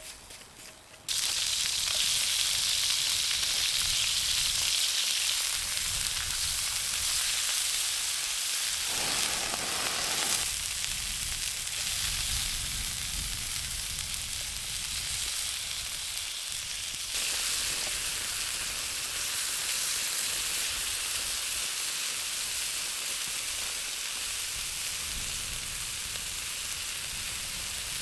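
Food sizzling steadily in a hot frying pan, starting suddenly about a second in.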